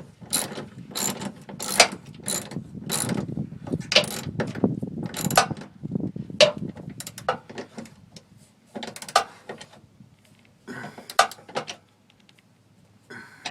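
Hand socket ratchet tightening a bolt: quick strokes, each back-swing giving a burst of pawl clicks, about two strokes a second for the first six seconds, then slower and sparser strokes with pauses.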